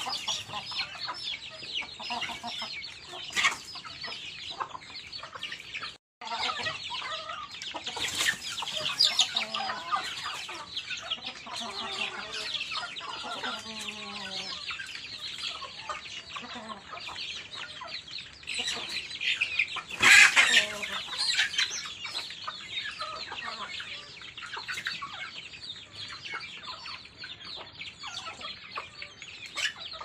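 A flock of chickens feeding: chicks peeping and hens clucking in a continuous high-pitched chatter, with a few louder calls, the loudest about twenty seconds in. The sound drops out for a split second about six seconds in.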